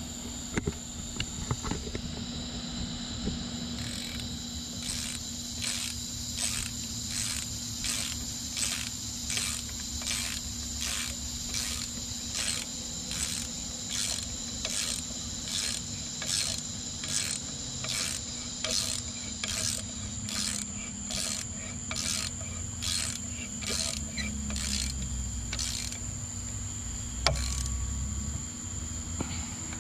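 Hand ratchet wrench clicking in steady, even strokes, about one and a half a second, as it tightens the mounting bolt of a replacement alternator; one sharp click near the end. A steady high insect trill runs behind it.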